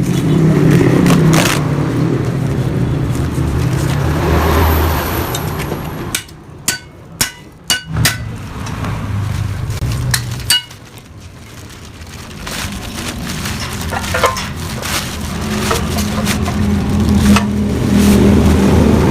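Motorcycle engine running at idle. It drops away about six seconds in, where a few sharp knocks sound, and then builds back up toward the end.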